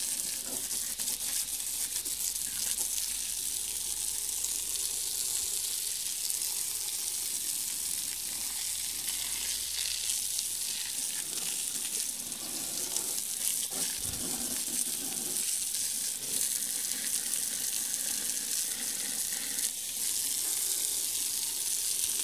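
Steady hiss of a jet of water spraying onto a sanded alloy wheel, washing dust and dirt out of its crevices.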